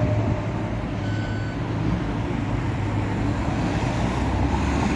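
Steady rumble of street traffic, with a single short electronic beep about a second in.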